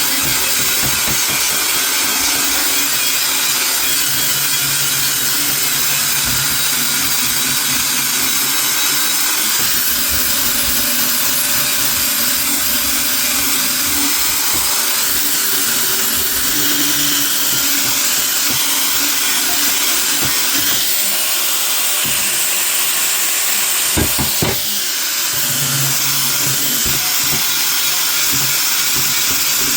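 A power tool running steadily on metal, with a short knock about three quarters of the way through.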